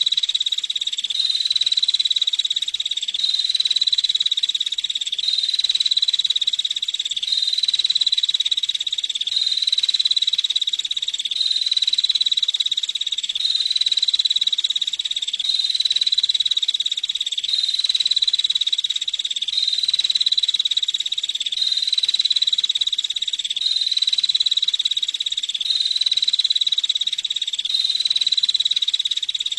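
Female prenjak (prinia) calling: a dense, rapid high-pitched trill that keeps going without a break and swells in even cycles about every two seconds.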